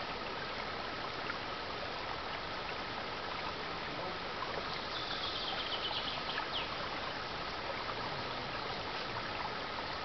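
Shallow mountain stream burbling over stones, a steady rush of water. About five seconds in, a short, rapid, high trill rises over it.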